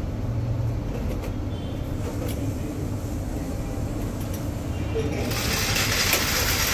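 Steady low hum of workshop machinery. A loud hiss joins about five seconds in.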